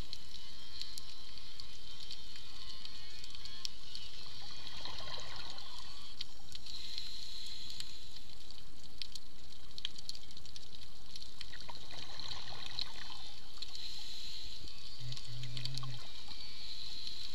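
Underwater ambience on a reef: a steady hiss of water noise with many scattered sharp clicks, and a brief low hum about fifteen seconds in.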